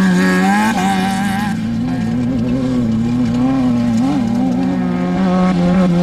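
Off-road desert race vehicle's engine running hard at high revs, holding a fairly steady pitch that wavers a little up and down.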